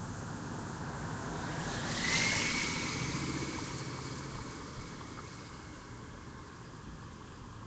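A vehicle passing on a wet road: tyre hiss swells to its loudest about two seconds in, with a thin rising whine, then slowly fades, over a steady low rumble of traffic.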